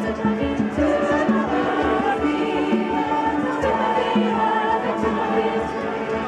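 Choir singing in harmony, holding long notes, with an upright piano accompanying.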